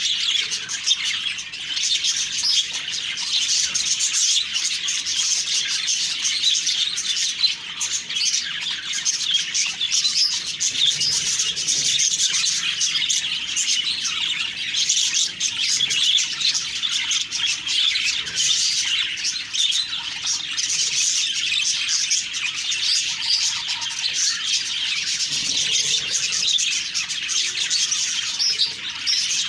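Budgerigars chattering and warbling without a break, many quick chirps and trills overlapping.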